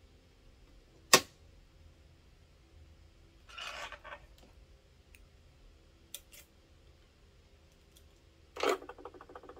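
Handling noises while a sewing machine is re-threaded: a single sharp click about a second in, the loudest sound, then brief rustles of thread and fabric and a couple of small clicks, with a longer rustle and quick rattle near the end.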